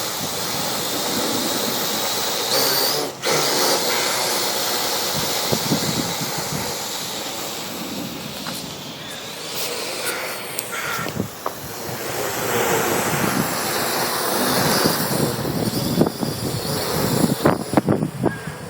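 Strong wind buffeting the microphone as a noisy, surging rush, with a drone's propellers running in it. Several sharp knocks come near the end.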